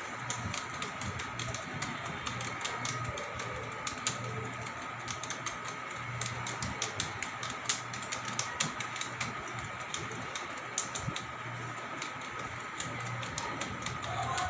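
Keys being typed on, irregular clicks of a typist working through a passage, over a steady background hum.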